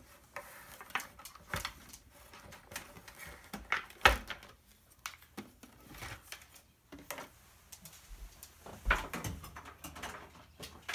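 Scattered plastic clicks and knocks from a stacked food dehydrator being handled, its top unit and fittings touched and moved, with the loudest knocks about four and nine seconds in.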